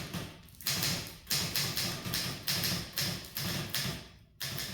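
Manual typewriter, a 1930 Mercedes 6 Express, being typed on in a steady rhythm of about two key strokes a second, each a sharp clack that dies away quickly.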